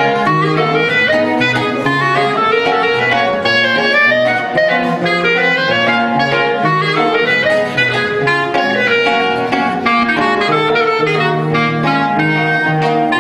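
Clarinet and nylon-string classical guitar playing together: the clarinet carries a flowing melody over plucked guitar accompaniment.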